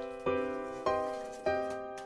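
Background keyboard music: chords struck about every half second, each ringing and fading.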